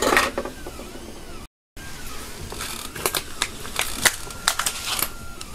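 Handling noise: a run of light clicks, taps and knocks as objects are picked up and moved about. About one and a half seconds in there is a brief dropout to dead silence.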